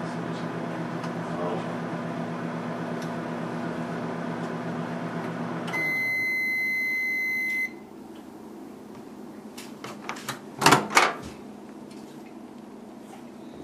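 A steady electrical hum, like an appliance running, stops about six seconds in. A single long electronic beep of about two seconds starts at that moment. A few sharp clicks and knocks follow a few seconds later, the last two the loudest.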